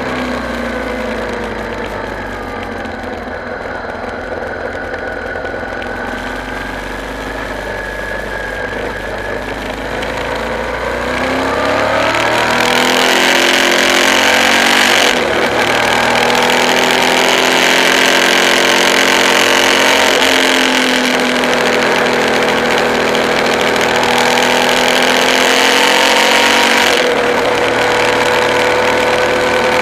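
Suzuki V-Strom DL650's V-twin engine running under way. Its pitch sinks during the first seconds, then it accelerates from about twelve seconds in, and loud wind rush builds with the speed.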